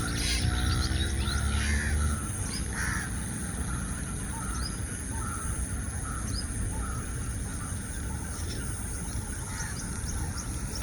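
Birds calling: a few short harsh calls in the first three seconds, then scattered brief high chirps, over a steady hiss.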